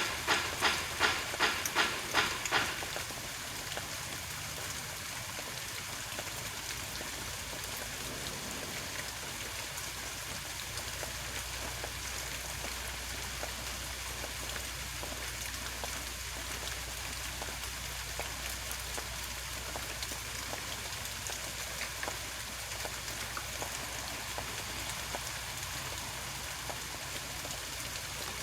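A quick regular run of sharp pulses, about three a second, stops about two and a half seconds in. A steady hiss with a low hum follows: background noise of an industrial yard.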